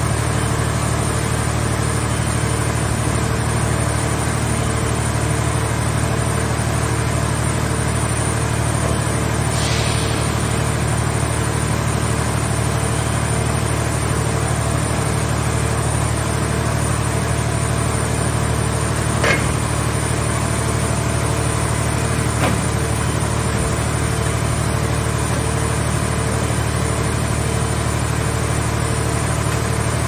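Scrap car shell baler's hydraulic power unit running with a steady low drone as its grab arm works, with two short knocks about two-thirds of the way in.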